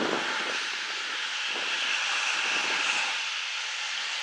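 Steady hiss of steam escaping from GWR 2-6-0 tank locomotive 9351 as it stands with steam up.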